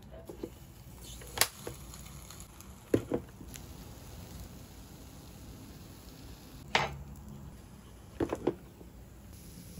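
Plastic lid of a MOZ electric waffle maker being handled and shut, giving sharp clunks and clicks: single knocks about a second and a half in, at three seconds and near seven seconds, then three quick clicks near the end.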